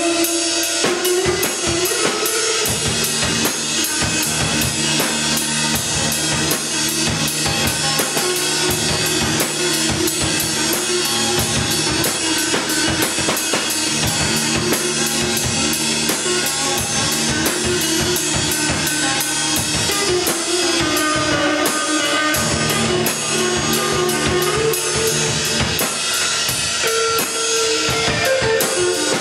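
A Pearl drum kit and a guitar playing together live, a continuous loud rock jam with bass drum, snare and cymbals driving under held guitar notes.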